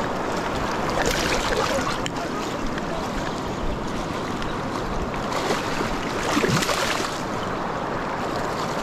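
Shallow river current rushing steadily over stones, with louder surges of splashing about a second in and again around six to seven seconds in as a hooked rainbow trout thrashes at the surface.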